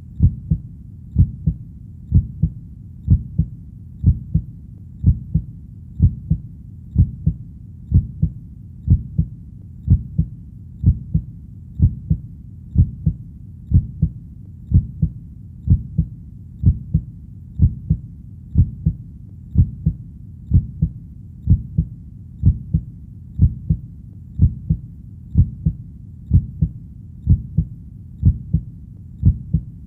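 A slow, steady heartbeat, each beat a low double thump (lub-dub), coming about once a second over a steady low background.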